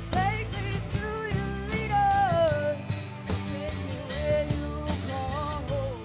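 Live pop-rock band playing: a female lead voice sings a melody that slides between held notes, over strummed acoustic guitar, electric guitars, bass and a drum kit.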